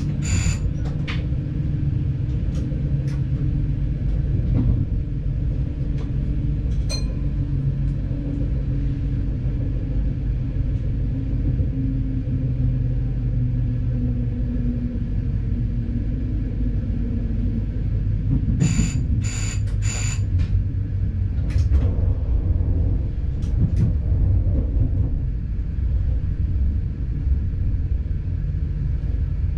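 Diesel multiple-unit train rumbling along while slowing for its stop, heard from the driver's cab, its engine tone sliding down in pitch about halfway through. Three short high beeps sound about two-thirds of the way in.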